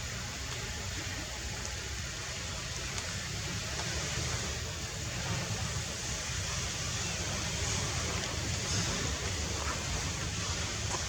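Steady outdoor background noise: a low rumble under an even hiss, with no distinct events, swelling slightly after a few seconds.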